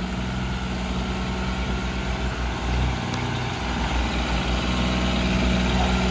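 Diesel tractor engines running at low speed as the tractors creep forward, a steady low drone that grows gradually louder as they come closer.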